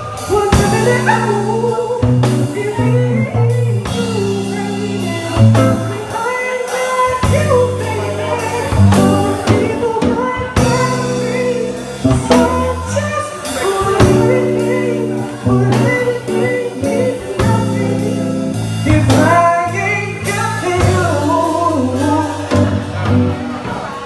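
Live band playing a song: guitar, electric bass and drum kit, with a man singing lead over them.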